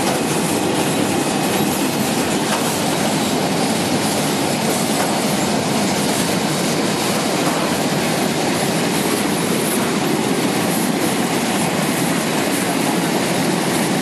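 Air-bubble vegetable washing machine running: a steady, loud rush of water churned by air bubbles in its tank, over the rumble and rattle of the machine and its conveyor.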